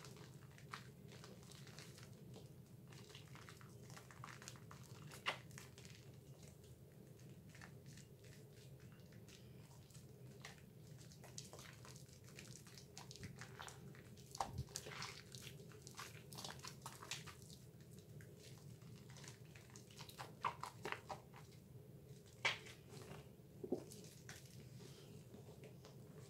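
Hands working a bar of Dove soap in thick lather: soft wet squishing and crackling of foam, with sharper pops and squelches bunched around the middle and near the end, over a faint low hum.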